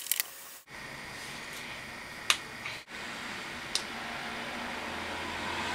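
A few sharp single clicks over a steady faint hiss, with a low hum coming in near the end.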